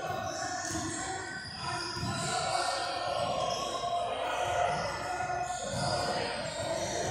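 Gym ambience: background music with held notes, plus scattered voices, in a large echoing gym.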